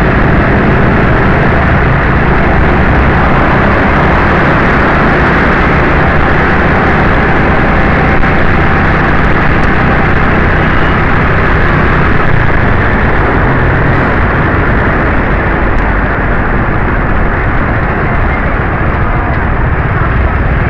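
Loud, steady traffic noise recorded from a vehicle moving through slow city traffic among cars, motorcycles and auto-rickshaws: a dense, even rumble and hiss with no distinct events, easing slightly near the end.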